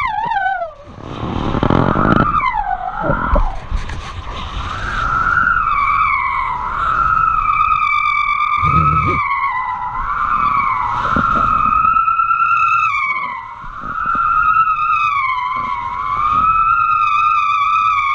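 A steady high whistle that wavers slowly up and down in pitch, from kite lines and the line-mounted camera in a wind of 20 knots and more, with gusts buffeting the microphone, the strongest about a second or two in.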